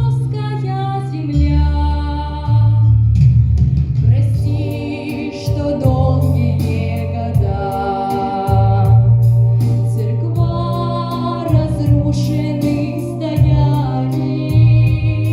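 A female vocalist singing a song over an instrumental backing track, its bass notes changing every second or two.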